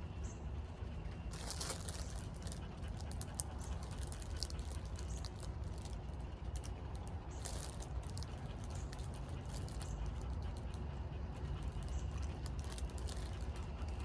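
Snack handling and eating sounds: scattered crinkles and clicks from a food wrapper and chewing, over a steady low rumble.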